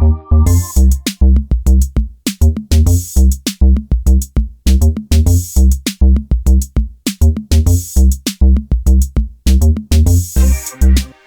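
Electronic background music with a heavy drum-machine beat.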